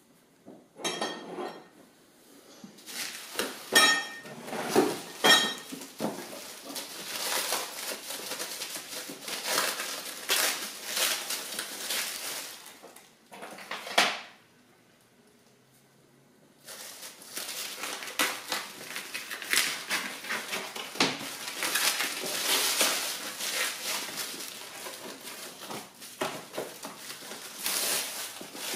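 Plastic film and cardboard packaging crinkling and rustling as a wrapped parcel is handled and unwrapped by hand, with a few sharp clicks about four to five seconds in and a pause of about two seconds about halfway through.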